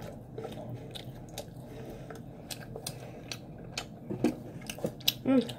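Someone chewing a bite of cheese pizza close to the microphone: a run of short wet mouth clicks and smacks, with a brief vocal sound near the end.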